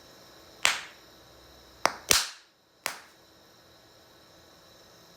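Electrolysis-gas-filled soap bubbles bursting as a butane torch flame ignites them, making sharp firecracker-like bangs. There are four bangs: one about two-thirds of a second in, then three in quick succession over the next second or so.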